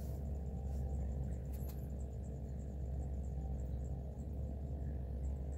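An insect chirping faintly in a regular high-pitched pulse, a few times a second, over a steady low hum.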